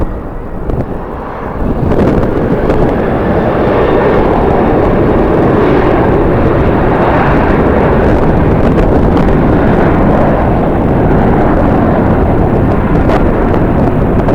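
Engine noise of a passing jet airliner: a loud rumble that swells about two seconds in and then holds steady, with strong wind buffeting the microphone.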